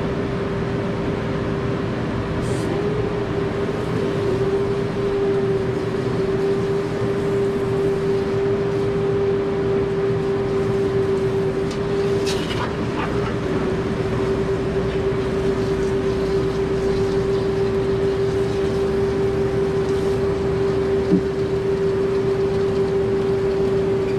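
A steady machine hum, one constant tone held over an even rushing noise, with a couple of faint brief clicks.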